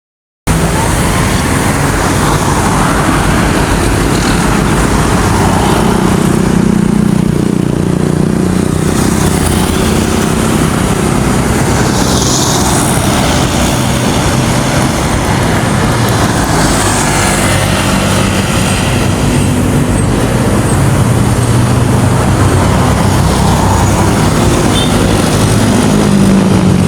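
Steady vehicle engine and road traffic noise with a constant low hum, starting suddenly about half a second in.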